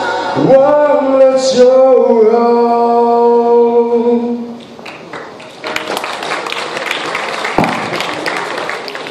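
A male singer holds the last note of a Mandarin pop ballad into a microphone; the note ends about four and a half seconds in. An audience then claps in a hall.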